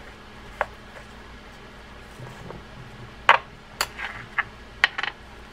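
Small metal fishing-reel parts clicking and clinking as they are handled on a wooden workbench: a brass main gear is set down and drag washers are fitted onto the main gear shaft. One click comes about half a second in, then a quick cluster of sharp clinks in the second half.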